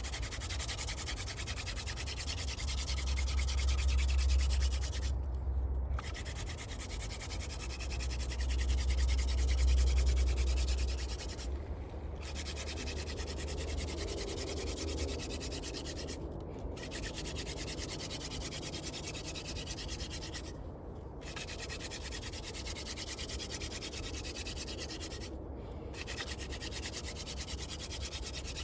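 Hand-drill friction fire: a wooden spindle spun back and forth between the palms, grinding against a wooden hearth board with a continuous rasping rub. It stops briefly about every four to five seconds, as the hands move back up the spindle, then resumes.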